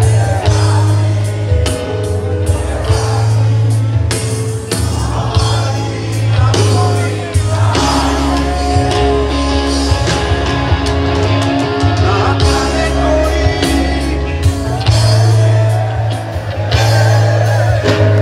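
Live band playing a song with a singer, with a heavy steady bass line and regular drum hits.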